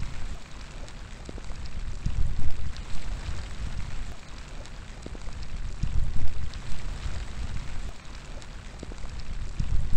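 Rain falling steadily, with many separate drops ticking through it. Gusts of wind rumble low, swelling about two and a half and six seconds in.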